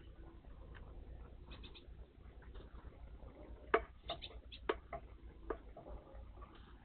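Small songbirds at a garden bird bath, likely great tits and blue tits: a few faint short high chirps, then a run of sharp clicks and ticks from about halfway in.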